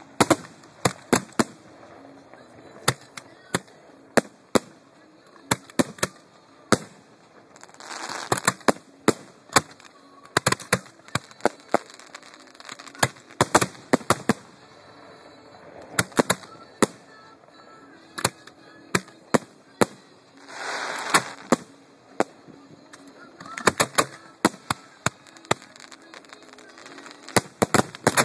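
Professional display fireworks heard close to the launch site: a steady run of sharp cracks and bangs, several a second. There are stretches of rushing hiss, the loudest about 21 seconds in.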